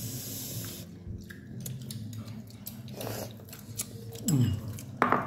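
People eating: chewing and gnawing meat off a boiled pork bone, with small clicks of spoons and bowls. Near the end comes a short voice sound that drops in pitch, then a sharp louder sound.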